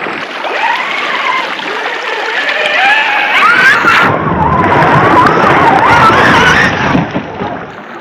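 Radio-controlled scale crawler truck's electric motor and drivetrain whining, the pitch wavering up and down with the throttle, over splashing as its tyres churn through the creek. It gets louder and fuller from about three and a half seconds in, then drops back near the end.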